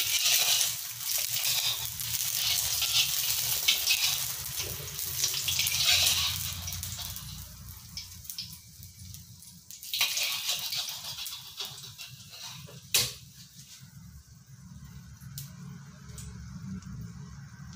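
Egg frying in hot oil in a wok, sizzling and crackling strongly, then dying down about seven seconds in. It flares up again briefly at about ten seconds, and there is one sharp knock a few seconds later, after which the sizzle stays fainter, with scattered crackles.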